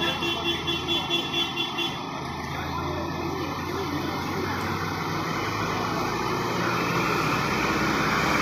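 A rapid electronic beeping, about three beeps a second, stops about two seconds in. Then a bus engine grows steadily louder as the bus drives past close by.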